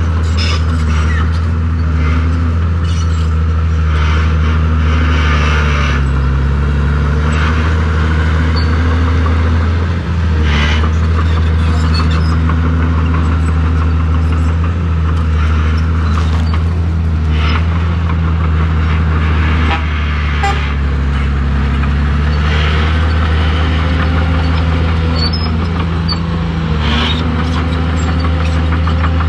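Heavy diesel earthmoving machinery running steadily under load, the engine note rising and falling slightly every few seconds, with scattered clanks and knocks as stone is worked.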